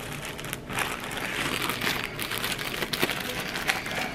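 Plastic wrapping around a pack of lumpia wrappers crinkling and crackling as it is handled and picked up.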